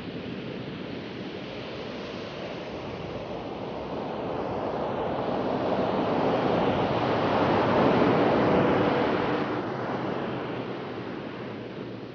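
Ocean surf breaking along a rocky shore: a steady rush of waves that swells to a loud peak about two-thirds of the way through, then eases off.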